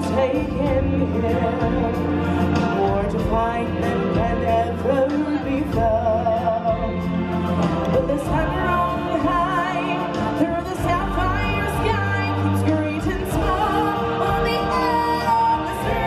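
Stage-show music with singing: voices hold long, wavering notes over backing music with a steady low bass.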